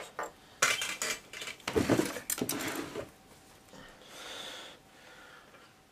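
Small metal hobby tools clinking and rattling as they are handled, with sharp clicks of side cutters snipping a styrene rod, most of them in the first three seconds. A brief soft rubbing sound follows about four seconds in.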